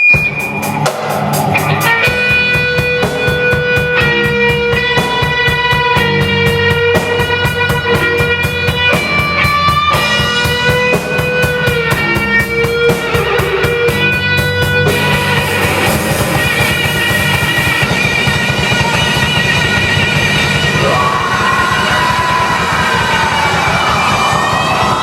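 Heavy rock song played by a band: a lead guitar melody of held, bending notes over drums. The fast drumming drops away a little past halfway, leaving the guitars ringing on.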